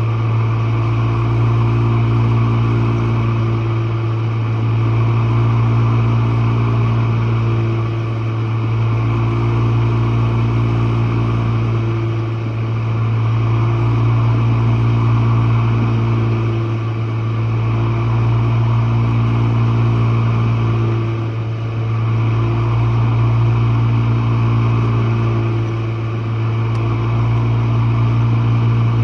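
Jenn-Air dishwasher running mid-cycle, heard from the bottom of the machine: a loud, steady motor hum over the rush of water, swelling and easing slowly every few seconds.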